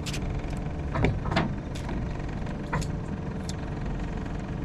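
Steady low rumble of a boat's outboard motor running, with a few scattered sharp clicks over it.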